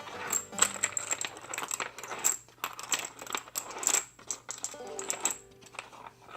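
Rifle cartridges clinking and rattling in a polymer AR-15 magazine speed loader as a magazine is loaded, a quick run of short metallic clicks, with background music.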